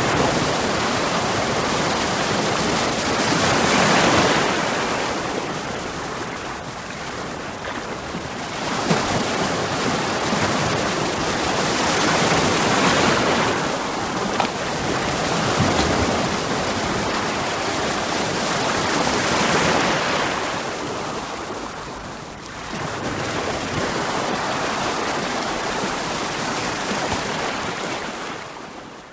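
Sea waves breaking on rocks: a continuous wash of surf that swells and eases every few seconds, fading out near the end.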